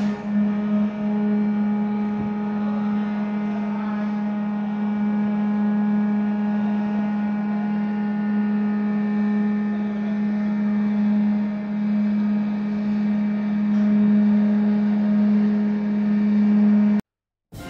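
A steady machine hum: one strong low tone with fainter higher overtones, holding unchanged and cutting off suddenly near the end.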